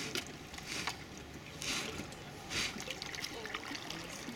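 Kayak paddles dipping and dripping, with water trickling and lapping against the kayak hulls; two brief splashes come about halfway through.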